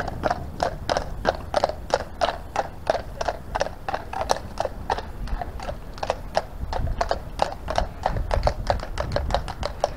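An even run of hard footfalls on paving, about three to four a second.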